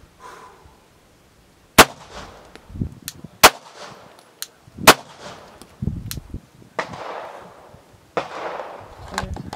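Three 9mm pistol shots from a Glock 19 Gen 5, fired about a second and a half apart.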